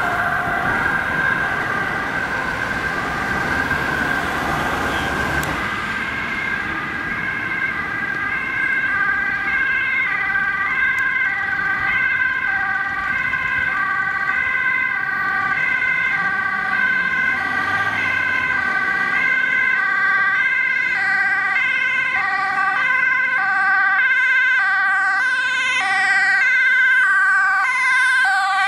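Dutch ambulance two-tone siren sounding high-low over and over, with a steady high tone running underneath and traffic noise. It grows louder near the end as an ambulance comes close.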